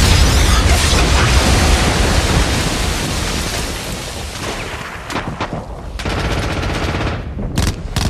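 Battle sound from a war film: dense machine-gun and rifle fire with blasts, loudest at the start and thinning after about five seconds, with a few sharp shots near the end.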